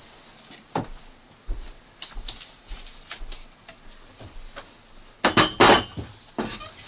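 Scattered knocks and bumps of a person moving about and handling things by a door, with a louder cluster of clattering about five seconds in.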